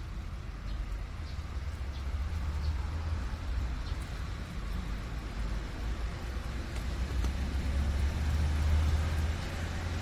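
Low rumble of a passing road vehicle, swelling to its loudest near the end and then easing slightly.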